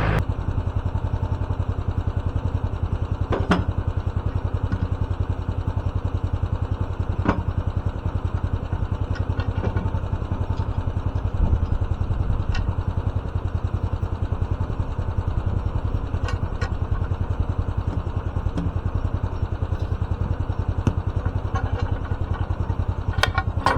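An engine idling steadily, with a few sharp clicks and knocks scattered through it.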